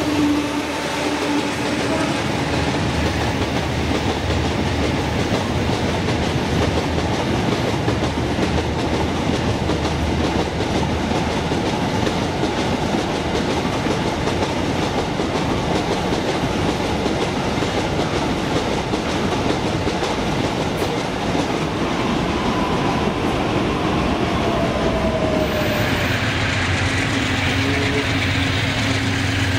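Long string of loaded open freight wagons rolling past at steady speed, steel wheels on the rails making a loud, even rush. About 26 s in this gives way to the steady hum of a diesel locomotive's engine as it approaches.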